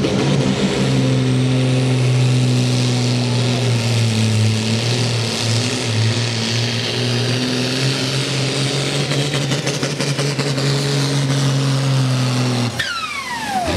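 Diesel pulling tractor running flat out under load as it drags the weight sled, with a steady, loud engine note. About 13 seconds in the engine cuts off sharply and a high turbocharger whine falls steeply away as it spools down.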